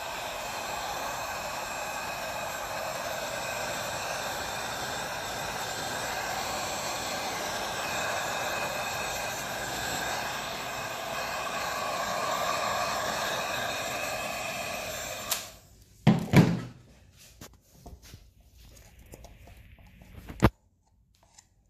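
Heat gun blowing steadily over wet epoxy resin to pop surface bubbles, then stopping suddenly about three quarters of the way through. Two loud knocks follow in quick succession, and a sharp click near the end.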